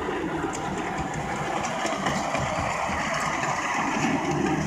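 A 5-inch gauge ride-on miniature train running along its track, making a steady mechanical noise of its drive and wheels on the rails.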